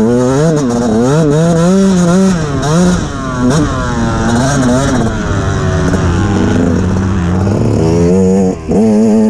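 Two-stroke KTM motocross bike ridden hard through sand, the engine revving up and down again and again as the throttle is worked, with a brief drop in revs about eight and a half seconds in before it pulls again.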